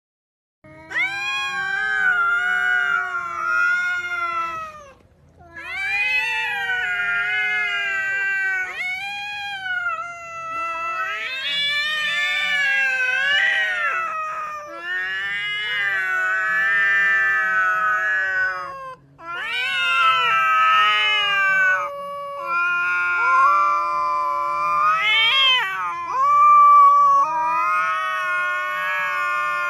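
Two domestic cats yowling at each other in a nose-to-nose standoff: long drawn-out wails that rise and fall in pitch, one after another with only short breaks. This is a typical threat display between cats squaring off.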